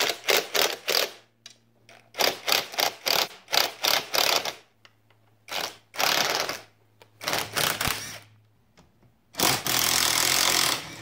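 Cordless impact driver hammering in a series of short bursts, each a rapid rattle, with a low motor hum under some of them, as it backs out the bolts holding a power seat's frame.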